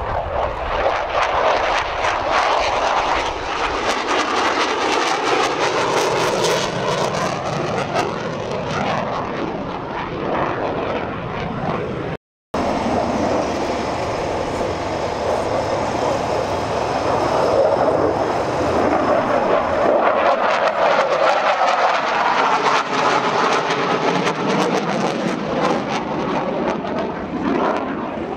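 Saab JAS 39 Gripen single-engine jet fighter flying a display, its loud jet noise sweeping and phasing as it passes and climbs. The sound breaks off briefly about twelve seconds in, then the jet noise resumes.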